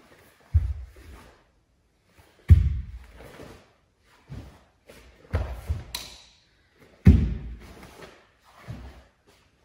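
Bare feet stepping and stamping on a sports-hall floor during a nunchaku kata: about five heavy thuds a couple of seconds apart, each echoing briefly in the hall.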